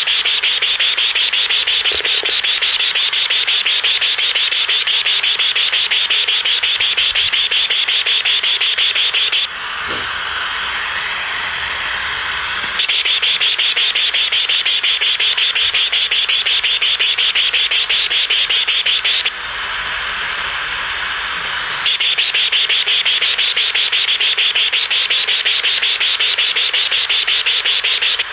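Portable AM/FM radio's speaker giving out loud, rapidly pulsing buzzy static as the output of a homemade satellite-LNB metal detector. The buzz drops to a quieter hiss about a third of the way in, comes back, drops again about two-thirds of the way through, then returns.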